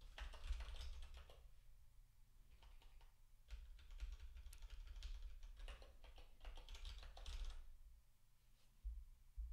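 Faint computer keyboard typing in quick bursts of keystrokes, with short pauses between bursts, dying away near the end.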